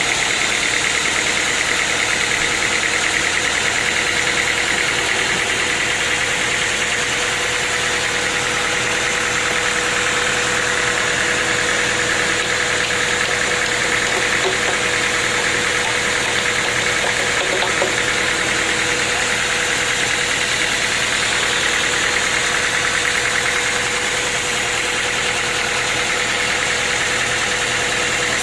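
Sawmill machinery running steadily, a loud, even engine-like drone with a steady hum and a strong hiss, unchanged throughout.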